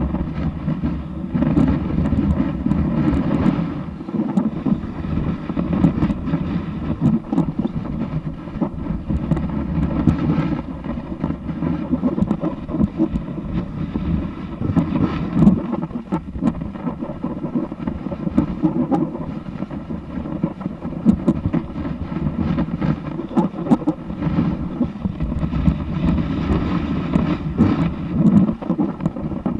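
Snowboard base sliding over snow, a continuous low rumble and scrape with small ticks and bumps, carried through the camera mounted on the board, with wind on the microphone.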